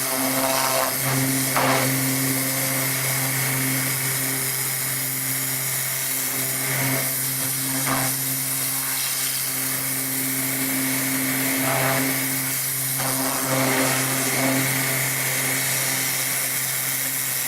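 Woodworking machine running with a steady hum, with a few short, louder rasping moments: around 1.5 s in, around 7 to 8 s, and around 12 to 14 s.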